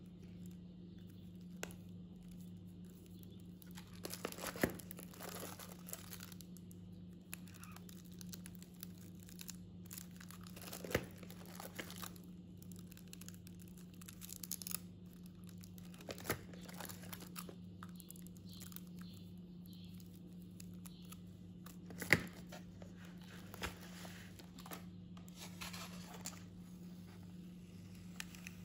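Plastic-wrapped rolls of washi tape crinkling and rustling as they are handled and turned over, with a few sharp clicks of rolls and fingernails knocking together. A steady low hum runs underneath.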